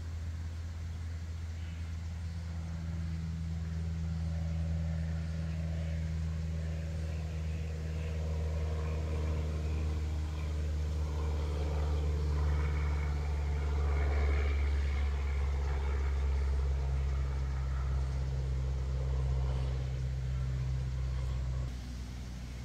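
A motor engine running with a steady low hum that swells toward the middle and drops off sharply near the end.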